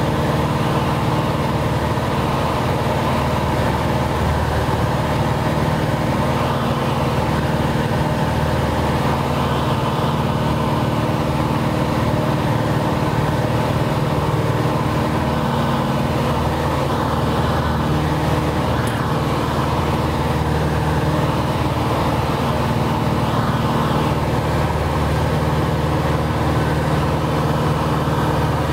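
Cessna 180's six-cylinder Continental O-470 engine and propeller running at a steady, unchanging pitch in flight, heard loud inside the cabin.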